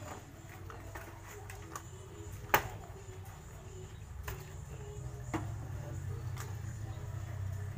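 Hands pressing and working potting soil around a plant in a plastic pot, with a few sharp knocks from the pot, the loudest about two and a half seconds in. Under it run a steady low hum and a steady high insect chirring.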